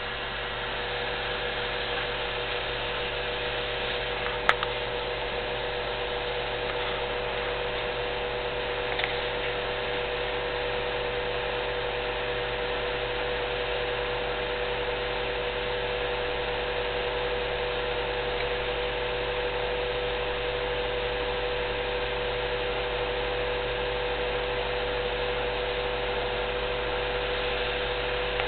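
Fasco convection (room) blower motor of a US Stove 5660 pellet stove starting up and running with a steady hum and buzz, the vibration and noise of a rough-running blower. One sharp click about four and a half seconds in.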